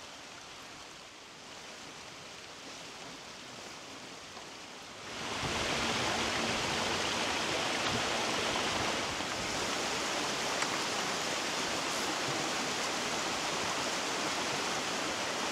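Mountain stream rushing over rocks, faint at first and much louder from about five seconds in.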